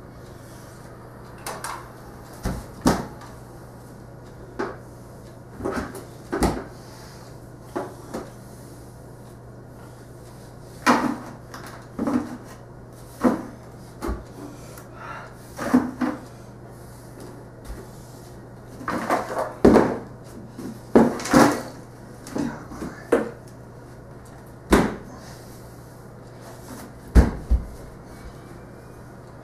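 Irregular knocks, taps and clatters on a hardwood floor from a wooden crutch, a push broom and a box being bumped and pushed along, with hopping footfalls, over a steady low hum.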